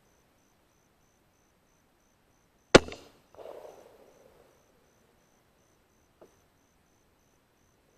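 A single rifle shot, one sharp crack about three seconds in, followed by a softer, rough noise lasting about a second.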